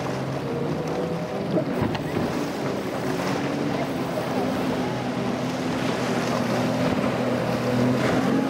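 Single Yamaha 250 outboard on a Hydra-Sports center console running at speed, a steady engine note that grows stronger in the second half as it passes. Over it are the rush of spray off the hull and wind on the microphone.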